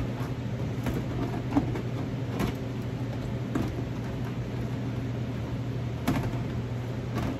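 Scissors scraping and picking plastic burrs out of freshly drilled holes in a clear plastic storage tub, giving a few scattered clicks and knocks of plastic. A steady low hum runs underneath.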